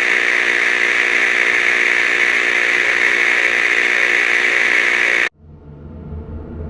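Loud, steady burst of radio static with a buzzing hum under it, like a dispatch transmission breaking up, which cuts off suddenly about five seconds in. A low, dark music drone then fades in.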